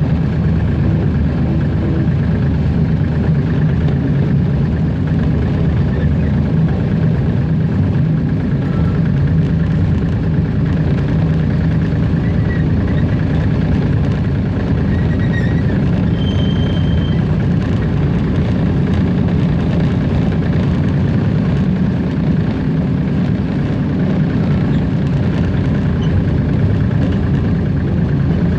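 Hunslet narrow-gauge diesel locomotive's engine running steadily while the locomotive travels along the line, heard from the cab.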